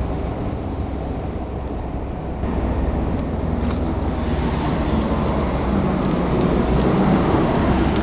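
A road vehicle passing, a rumble that builds from about two and a half seconds in and eases off near the end.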